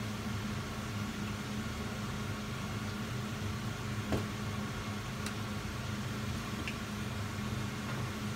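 Potatoes deep-frying in a pot of oil, a steady sizzle over a low hum, with a few faint pops from about four seconds in. The oil is too hot, as the cook concludes, which is why it spits.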